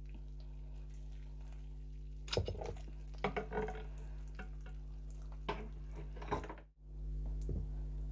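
Rusty bayonet being lifted out of an electrolysis rust-removal bath, with a handful of wet splashes and drips of electrolyte. Under it runs a steady low electrical hum, which cuts out briefly about two-thirds of the way through and comes back louder.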